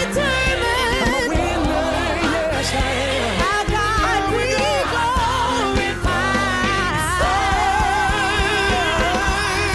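Background music: a song with a sung vocal melody, with vibrato, over a steady instrumental backing.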